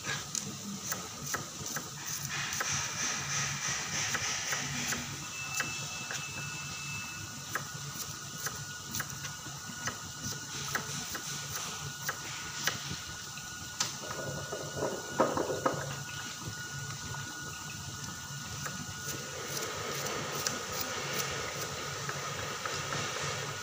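Onions (bawang Sumenep) deep-frying in a large wok of oil: a steady sizzle full of irregular small pops and crackles, with a louder flurry of crackling about fifteen seconds in.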